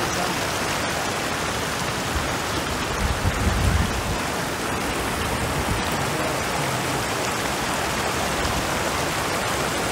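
Steady rush of flowing water, even and unbroken, with a brief low rumble about three and a half seconds in.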